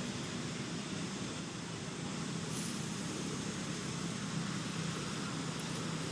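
Steady low hum over an even background noise, unchanging throughout.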